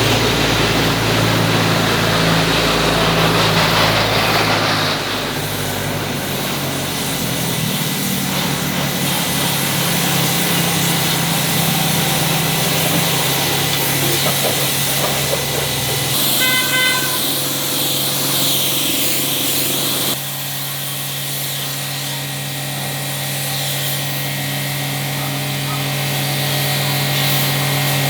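Steady machine running noise with a low hum, changing abruptly several times. A brief high tone sounds about two-thirds of the way through.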